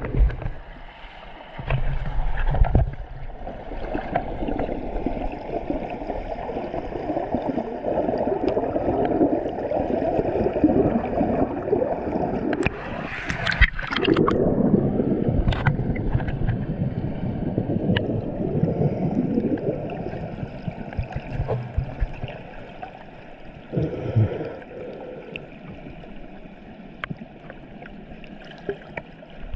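Waterfall water rushing and gurgling into a rock pool, louder through the middle and weaker toward the end.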